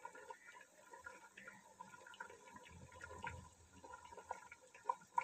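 Faint bubbling and crackling of rice simmering in its water in a steel cooking pot for pulao, with a couple of sharper ticks near the end.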